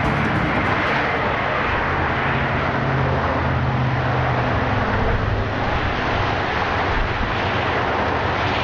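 Car engine running, heard from inside the cabin: a steady hum with a wide rushing noise over it.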